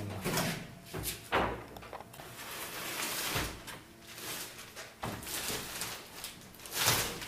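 Plastic sheeting rustling and crinkling, with several knocks and scrapes of wooden frames, as a large plastic-wrapped canvas is handled and pulled from a stack of paintings.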